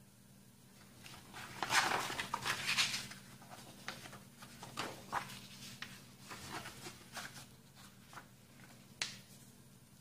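A sheet of paper rustling as it is folded in half lengthwise by hand, loudest about two seconds in, followed by short scratchy strokes as fingers press the crease flat, and one sharp crisp click near the end.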